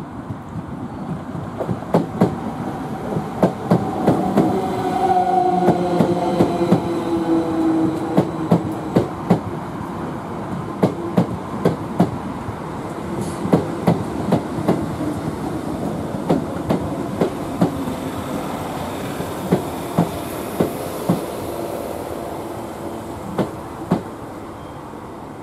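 Electric multiple-unit passenger train running over the junction pointwork, its wheels clacking over the rail joints and crossings, often in pairs, with a falling whine a few seconds in. The sound slowly fades as the train draws away.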